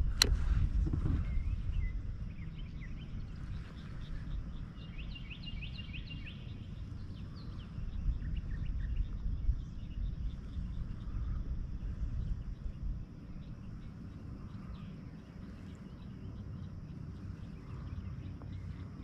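Outdoor lakeside ambience: a low rumble of wind on the microphone, with birds chirping in short quick runs and a faint steady high buzz. A single sharp click comes just at the start.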